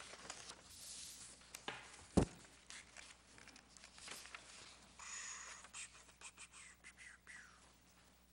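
Papers being handled and a pen writing at a desk: faint rustles and small clicks, with one dull thump about two seconds in.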